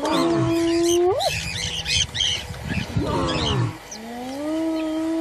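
Lionesses calling: two long, level-pitched calls, one near the start and one near the end, with a call that falls in pitch between them. Small birds twitter in the background.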